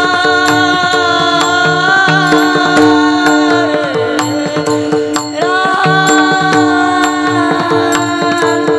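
Devotional bhajan music: mridang drumming under a long, drawn-out sung melody, the voice holding notes with a dip in pitch about four seconds in before rising into a new held note.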